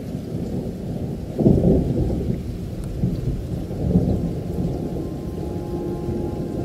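Recorded thunder and rain opening a background music track, a steady rumbling hiss with two louder thunder rolls about a second and a half and four seconds in. Held music tones come in near the end.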